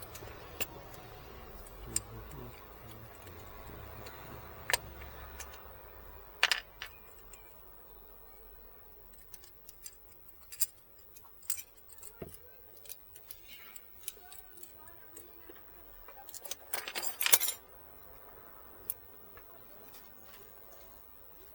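Keys jangling and clicking as they are handled, in scattered short clicks with a louder cluster of jangles about 17 seconds in. A low rumble sits under the first six seconds.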